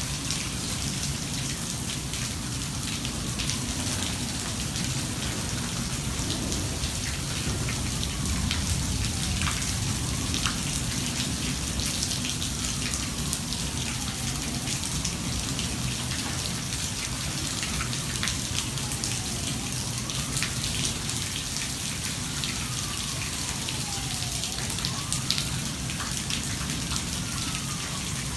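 Heavy rain falling steadily, with individual drops ticking. A faint siren wails slowly up and down beneath it.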